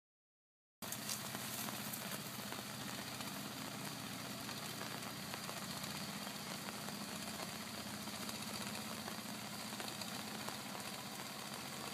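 Steady low engine hum under an even outdoor hiss, starting about a second in, typical of a distant small boat motor on the river.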